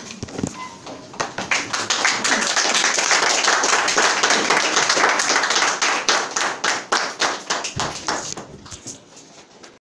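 A group of people clapping, building up about a second in and thinning out near the end, then cutting off suddenly.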